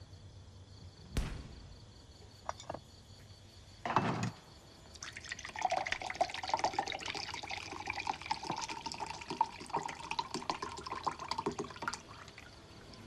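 A sharp click, two faint clicks and a short thump, then water pouring for about seven seconds, its pitch rising a little.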